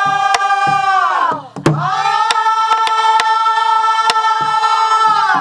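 A group of voices singing a long, drawn-out refrain of a Namdo folk song in unison, holding one note that slides down about a second and a half in, then holding another long note, as the teacher asks them to stretch it out. Buk barrel drums are struck in time beneath the singing.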